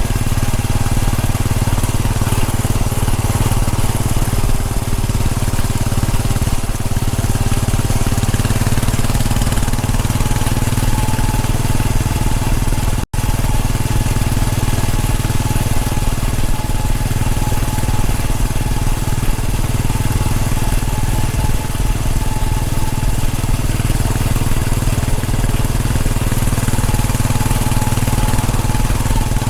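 Royal Enfield Bullet 500's single-cylinder engine running at a steady pace under way. The sound cuts out for an instant about halfway through.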